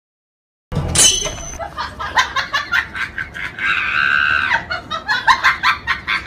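Hearty laughter in rapid bursts, with a drawn-out high squeal about midway. It starts a little under a second in, after silence.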